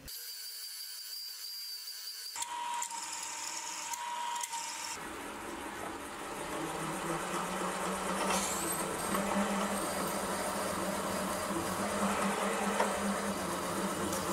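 Sieg X2.7 mini mill's spindle running as a reamer cuts a hole in an aluminium bar. Its motor whine rises in pitch about eight seconds in.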